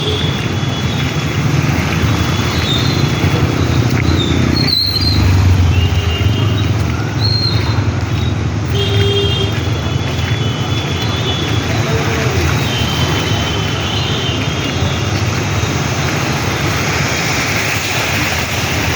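Street traffic: vehicle engines running steadily, with short high horn toots now and then and a single sharp knock about five seconds in.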